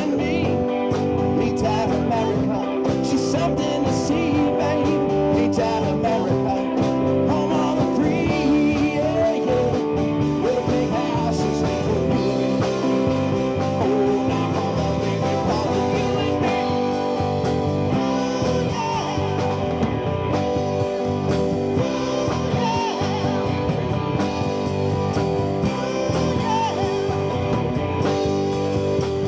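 Live rock band playing: electric and acoustic guitars over a Pearl drum kit, with a male lead singer.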